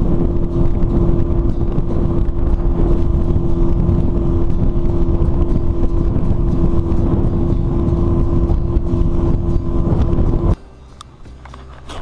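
A bass boat's outboard motor running at speed, a steady hum under heavy rushing noise. It cuts off suddenly about ten and a half seconds in.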